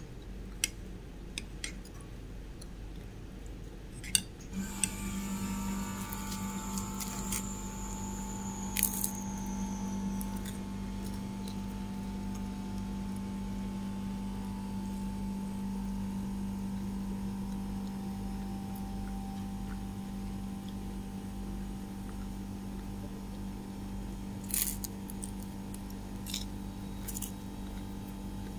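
A steady hum with a low and a higher tone starts suddenly about four seconds in and runs on, with a few light clicks and taps scattered through it.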